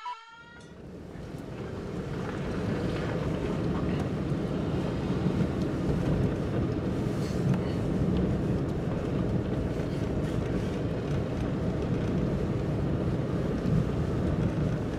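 Steady low rumble of a car driving slowly, engine and tyre noise heard from inside the cabin. It fades in over the first two seconds, then holds steady.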